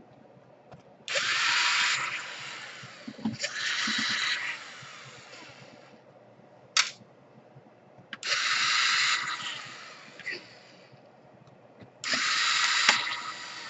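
Cordless drill-driver run in four short bursts of about a second each to back out laptop case screws, each burst trailing off as the trigger is released, with a single sharp click between the second and third.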